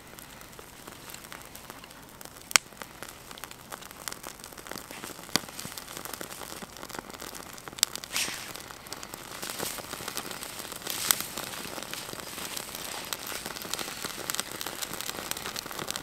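Small campfire of dry twigs catching: a dense crackle that grows louder as the flames spread, with a few sharp single pops.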